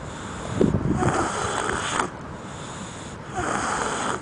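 Rhythmic snoring, two rasping breaths a couple of seconds apart.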